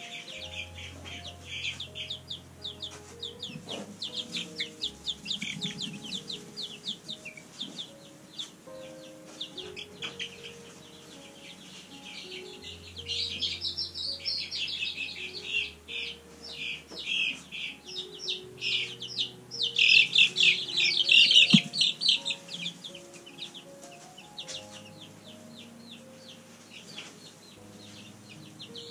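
Two-week-old chicks peeping rapidly and continually, loudest about twenty seconds in, over quiet background music.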